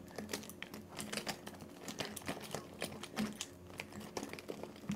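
Irregular light clicks and clatter of makeup brushes and pencils being rummaged through, several knocks a second.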